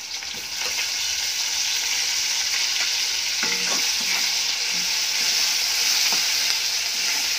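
Chopped tomatoes and onions sizzling in hot oil in a kadai as they are stirred with a spoon. A steady frying hiss that grows louder about half a second in, with a few light scrapes of the spoon against the pan.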